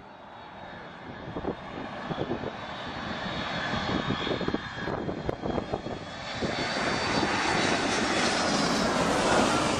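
Airplane engines growing steadily louder as the aircraft approaches, a thin high whine over a broad rushing noise that peaks near the end.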